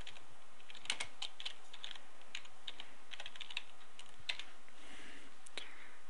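Computer keyboard typing: a run of irregularly spaced key clicks from about a second in until shortly before the end, as a short phrase is typed.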